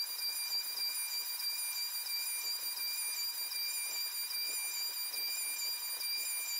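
CNC router spindle running with a steady high-pitched whine while a quarter-inch down-cut bit cuts a pocket in plywood, over the steady hiss of the shop vacuum drawing through the dust boot.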